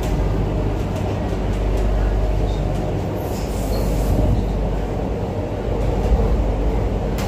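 MTR Island Line Q-Train electric metro car running between stations, heard from inside the car: a steady low rumble of wheels and running gear. A brief high hiss comes in about three seconds in.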